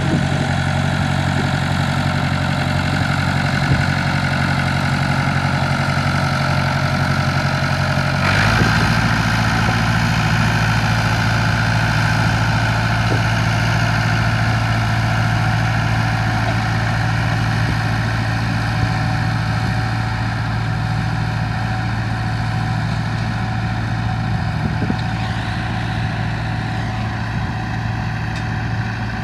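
Tractor engine running steadily, close by. About 8 seconds in, its note changes and then holds at the new speed.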